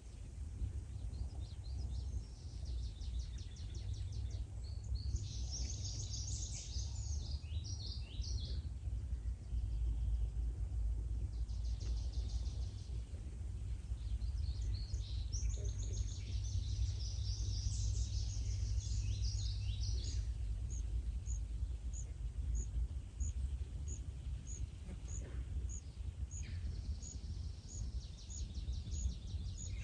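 Songbirds singing in several bursts of high, rapid song, and in the last third a steady run of short high notes about three every two seconds, over a constant low rumble.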